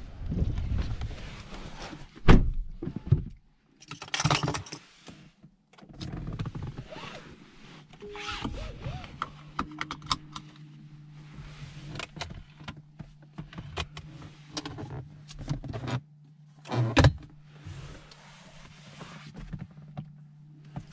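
Handling noises in a car cabin: several thunks and knocks, the loudest about two seconds in and again near the end, between stretches of rustling and whirring. A steady low hum sets in about nine seconds in.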